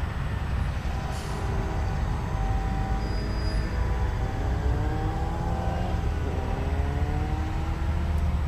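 Heavy diesel engines heard out of sight: a steady low rumble with several engine tones slowly rising in pitch, as engines power up.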